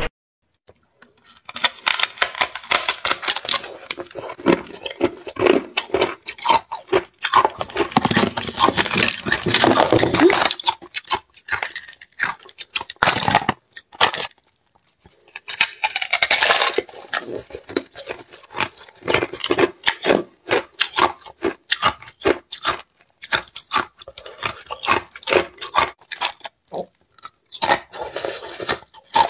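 Ice being bitten and crunched between the teeth close to the microphone, first a frozen matcha ice cube, then thin sheets of ice: dense runs of sharp cracks and crackles. There is a short silent break about halfway through.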